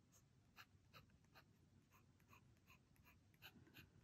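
Very faint scratching of a Jinhao 82 fountain pen's steel nib on paper: a run of about a dozen short, separate strokes at an uneven pace.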